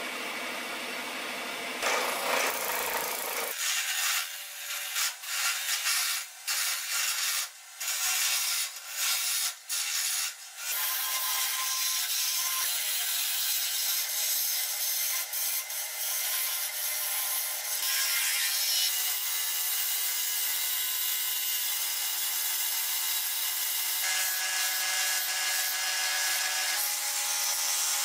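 Wood lathe spinning a wooden blank while a turning chisel cuts it, throwing shavings. It goes in short, broken strokes at first, then steadily, with sanding of the turned piece near the end.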